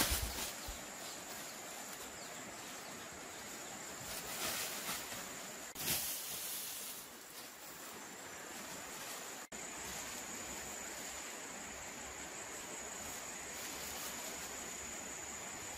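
Hand-made insect net swishing through grass and leafy undergrowth, a few brushy sweeps in the first six seconds, over a steady high insect drone.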